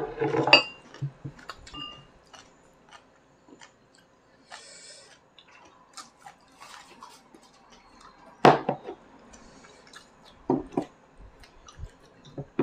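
Table sounds of a meal: chopsticks clicking and scraping against small ceramic bowls, with chewing. There is a brief rush of noise about halfway through, and a few louder knocks of bowls or chopsticks later on.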